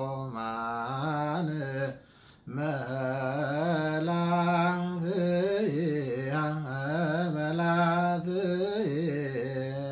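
A man's solo voice singing Ethiopian Orthodox Ge'ez liturgical chant (zema), drawing single syllables out into long melismatic notes with wavering ornaments. There is a short pause for breath about two seconds in.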